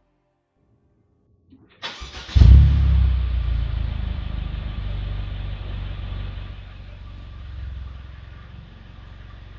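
Mercedes-Benz W205 C300's turbocharged 2.0-litre four-cylinder starting, with MagnaFlow mufflers: a brief crank about two seconds in, a loud rev flare as it catches, then a steady idle that slowly settles.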